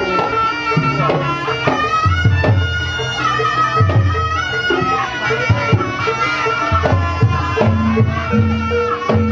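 Traditional kuda kepang accompaniment music: a nasal reed trumpet (slompret) plays a wavering, sliding melody over drum strokes and low sustained tones.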